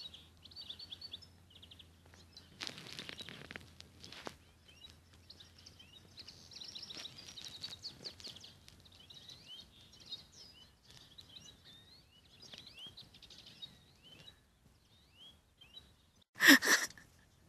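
Small finches chirping and twittering in quick runs of high calls. About three seconds in there is a brief rush of noise, and near the end a loud sudden burst cuts across the calls.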